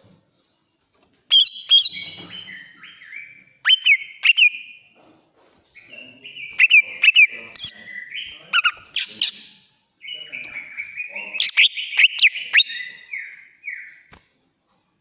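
Greater green leafbird (cucak ijo) in a fired-up, aggressive song: shrill, rapid phrases of sweeping and chattering notes. It comes in four bursts with short pauses between them, starting about a second in.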